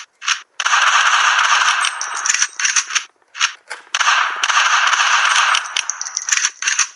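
Rapid gunfire-like clattering: a few short bursts, then two long stretches of about two and a half seconds each with short bursts between.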